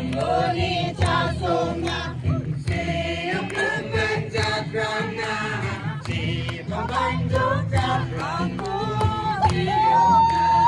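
Music with several voices singing together over a steady low accompaniment.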